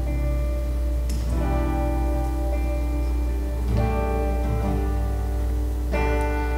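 Live worship band playing an instrumental passage: electric and acoustic guitars ringing out sustained chords that change three times, with light drum or cymbal touches and a steady low hum underneath.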